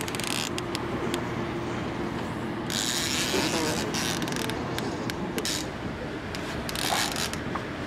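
Fishing reel clicking and ratcheting in quick irregular ticks while a hooked sturgeon pulls against the bent rod.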